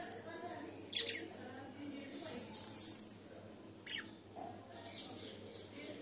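Pet budgerigars and finches chattering and chirping, with a steady warbling chatter under two sharp chirps, the louder about a second in and another near four seconds.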